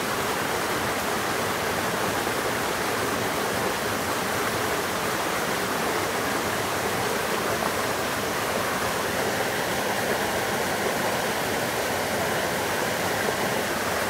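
Small waterfall in a mountain stream, water spilling over boulders into a shallow pool: a steady rushing and splashing that holds an even level throughout.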